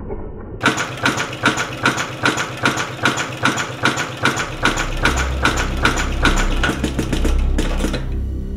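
Habraken heavy-duty industrial sewing machine stitching through leather: a steady, even run of needle strokes, about three or four a second, that stops about eight seconds in. A low pulsing music bass comes in underneath about halfway through.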